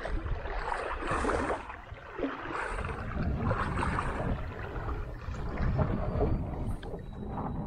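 Stream water rushing and splashing over rocks at a rapids, with wind buffeting the microphone in an uneven low rumble.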